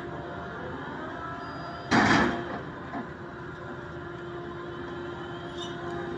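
Port crane machinery running steadily with a low hum. About two seconds in there is one short, loud crash as the crane's open clamshell grab comes down into a pile of raw salt.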